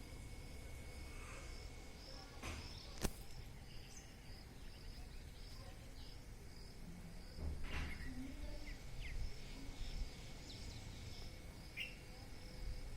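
Outdoor rural ambience: insects chirping in a steady, pulsing high trill, with a few short bird chirps and a low rumble underneath. There is one sharp click about three seconds in.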